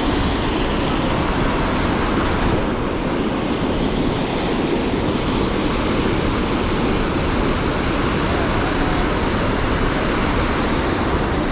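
Steady rush of river water flowing fast around the angler, an even hiss with no breaks; its highest part thins out about two and a half seconds in.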